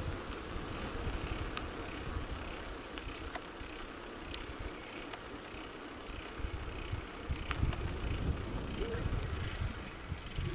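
Wind buffeting the microphone in uneven low gusts over a steady rustling hiss, with a few scattered small clicks and rattles, as if moving along a road.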